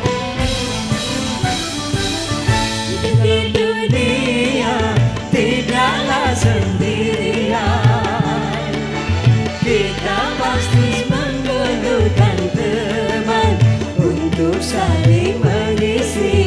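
Live dangdut band music: a hand-drum beat runs under electric guitar and a wavering, ornamented melody line. The full-band sound thins into a drum-led groove about four seconds in.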